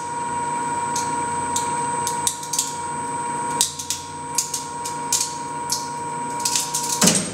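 Tensile test machine running with a steady hum and whine while the heavily used tubular nylon webbing and its sewn loop crack and pop under rising load. The loudest crack comes about seven seconds in, as the machine's whine stops, the sign of the webbing breaking.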